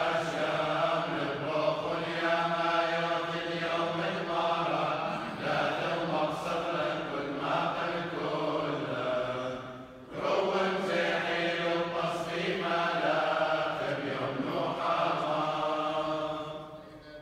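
Male clergy chanting Chaldean funeral prayers, a slow sung chant held on long notes, with a brief break about ten seconds in and stopping near the end.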